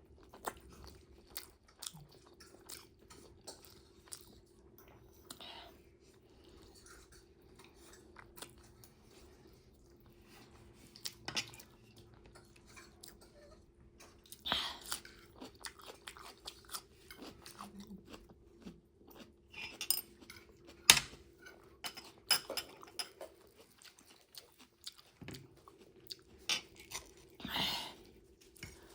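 Close-miked chewing and crunching of food in the mouth, with many small wet mouth clicks and a few louder bites through the middle and near the end.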